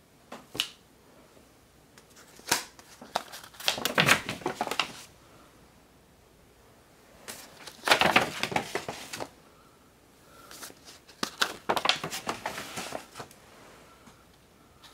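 Brown paper sleeves in an album of 78 rpm records rustling and crinkling as the pages are turned and handled, in three bursts of a few seconds each, with a short click near the start.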